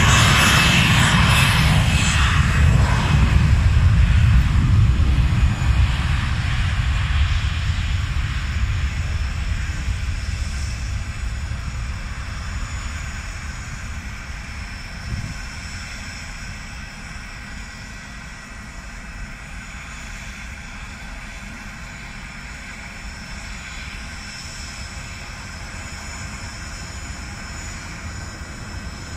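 Airbus airliner's jet engines at takeoff thrust: a loud deep roar with a rushing hiss, loudest a few seconds in as the plane rolls past down the runway. It then fades steadily as the plane climbs away, leaving a faint distant rumble.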